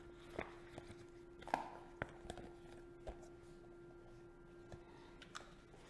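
Faint handling sounds: a few light clicks and taps as the diaphragm is fitted into an anaesthesia machine's breathing block, over a steady faint hum.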